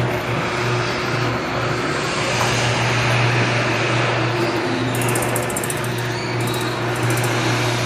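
Chain-drive garage door opener running and raising the door, its motor giving a steady hum with the rattle of the chain drive.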